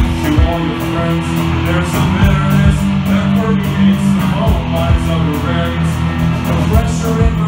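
Live punk rock band playing: electric guitar and bass over a steady drum beat with regular cymbal hits.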